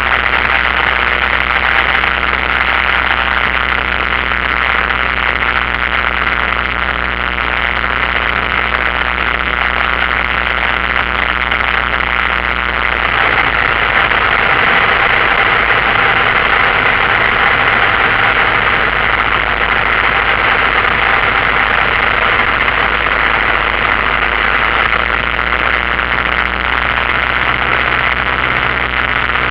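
Single-engine light aircraft's piston engine and propeller running steadily, heard from inside the cockpit as a loud, even drone with cabin noise. The low engine note shifts slightly about halfway through and again near the end.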